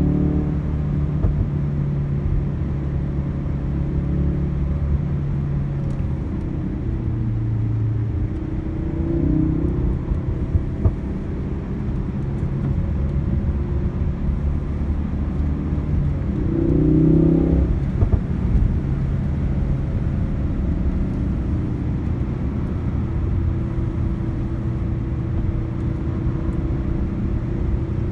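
Ford Focus RS turbocharged four-cylinder engine and road rumble heard from inside the cabin while driving. The engine note shifts in pitch a couple of times, rising briefly and getting louder about two-thirds of the way through.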